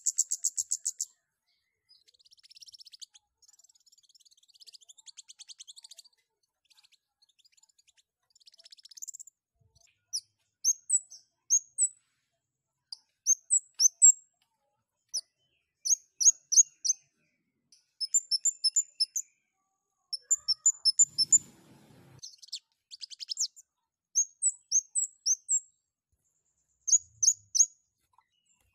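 Scarlet-headed flowerpecker (cabai jawa, 'kemade') calling. It opens with a loud rapid run of high ticks, then gives softer trills, then from about ten seconds in repeats short clusters of three or four sharp, very high chirps with brief pauses between them.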